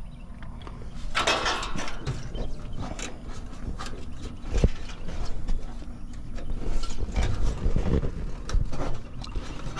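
Hands working among the wiring and copper tubing inside an outdoor condensing unit: rustling, with scattered light clicks and knocks. A louder rustle comes about a second in and a sharp knock about four and a half seconds in.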